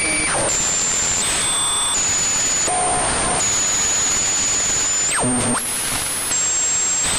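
Synthesized sci-fi radio interference: a steady static hiss with high whistling tones that jump to a new pitch every second or so, like an odd radio being tuned. A quick downward-sweeping whistle comes a little past five seconds in.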